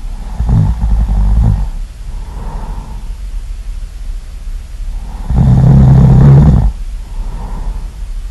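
Really loud snoring: two long, rattling snores about five seconds apart, each followed by a softer breath.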